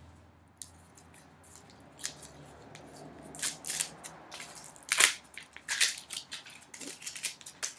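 Foil being torn off the neck of a champagne bottle and its wire cage worked loose by hand: a run of crinkles and small clicks, the sharpest about five seconds in.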